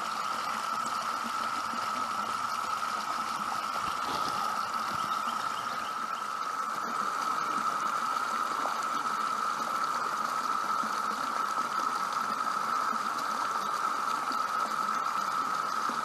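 Chorus of Brood X 17-year periodical cicadas, a steady unbroken drone at one pitch, over the rushing of a small waterfall pouring into a pool.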